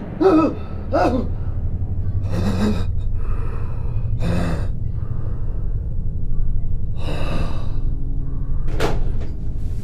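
A man breathing hard in ragged gasps, with a couple of short moans in the first second, then about four loud breaths spaced a couple of seconds apart. Underneath runs the steady low hum of the car's engine.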